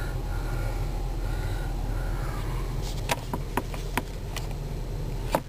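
Steady low hum of a 2003 Nissan Maxima idling, heard from inside the cabin. From about halfway through come a series of light plastic clicks and knocks as the sun visor is flipped down and handled.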